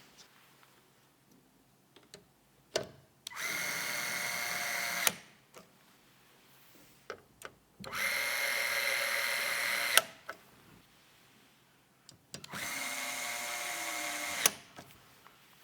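Small electric screwdriver running in three bursts of about two seconds each, a steady whine, with small clicks in the pauses between them.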